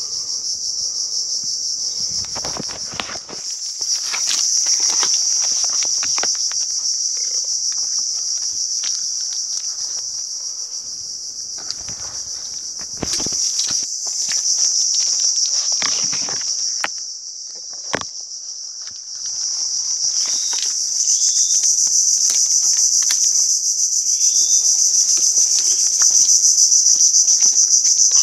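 A loud, steady, high-pitched insect chorus fills the mangrove, with scattered crackles, knocks and thuds of footsteps and brushing branches as someone walks through the mud.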